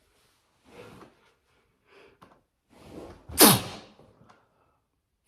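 A person sneezing: a few short breaths in, then one loud sneeze about three and a half seconds in, its cry falling in pitch as it trails off.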